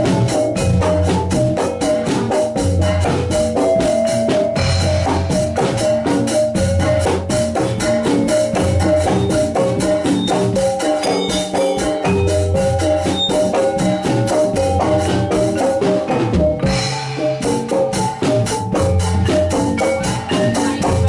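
Javanese gamelan ensemble playing: metal-keyed mallet instruments ring out a fast, busy melody over a steady low drum pulse, with sharp strikes throughout.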